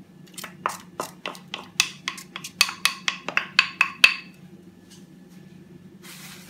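Wooden spoon knocking and scraping against the inside of a bowl as grated tomato is scraped out, a quick run of sharp knocks, about five a second, that stops about four seconds in.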